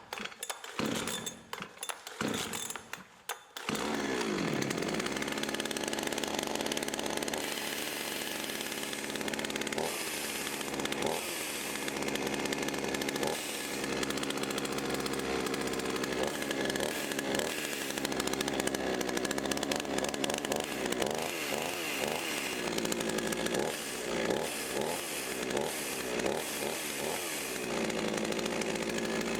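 Freshly rebuilt budget two-stroke chainsaw being pull-started on a little choke: a few short jerky bursts from the starter, then the engine catches about four seconds in and keeps running, revved up and down repeatedly, more often near the end. It starts and runs properly, a sign the rebuild worked.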